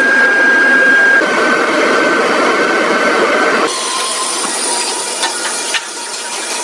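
Industrial machinery running with a steady high whine over dense mechanical noise, cutting abruptly about three and a half seconds in to a different machine sound with a thin high whine and light ticks.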